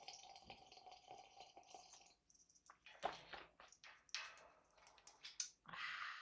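Person slurping coffee, a bubbly sputtering slurp with a thin whistly tone for about two seconds. It is followed by a run of sharp clicks and pops, and a breathy hiss near the end.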